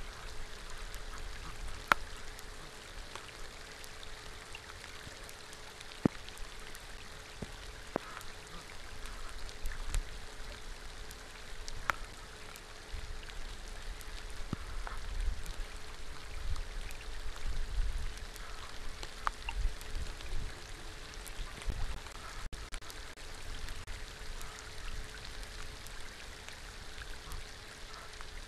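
Steady rain falling on open water, with scattered sharp taps of single drops, two louder ones in the first few seconds. A faint steady hum and a low rumble that swells in the middle lie underneath.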